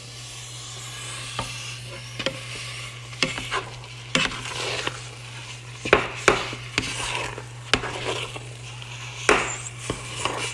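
A spoon stirring thick maja blanca (coconut-milk and corn pudding) in a cooking pot, scraping through the mixture with irregular clinks and knocks against the pot's sides.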